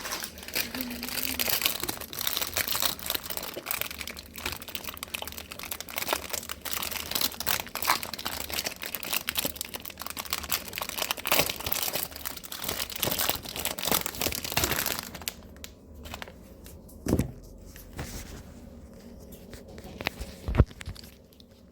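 Plastic wrapper of a microwave popcorn bag crinkling and tearing as it is opened, for about fifteen seconds. It then goes quieter, with two knocks near the end.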